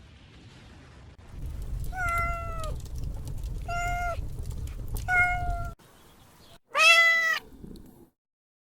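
A domestic cat meowing four times, each meow about half a second to a second long, the last one the loudest. A low rumbling noise runs under the first three meows.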